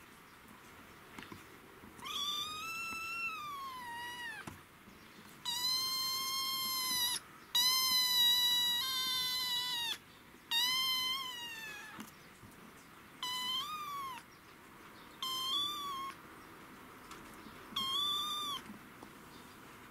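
Six-week-old kitten meowing: seven loud, drawn-out meows, the first four long and the last three shorter.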